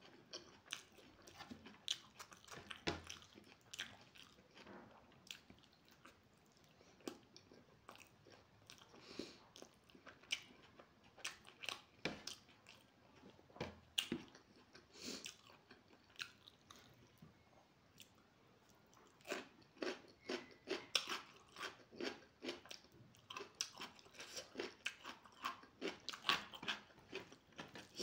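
Close-miked chewing of a mouthful of rice and egg curry: a stream of wet smacks and clicks with some crunchy bites, sparser for a few seconds past the middle, then quicker again.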